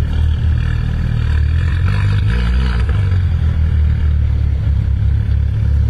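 Mercedes-AMG A45 hatchbacks' turbocharged four-cylinder engines idling at the start line with a deep, steady rumble, and a short rev about two seconds in.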